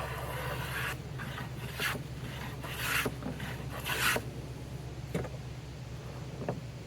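Hand tool working wood: a rasping stretch, then three short rasping strokes about a second apart, followed by a couple of light knocks, over a steady low hum.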